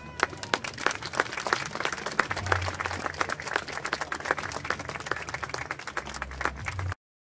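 A crowd applauding, with many dense, irregular hand claps. It cuts off suddenly near the end.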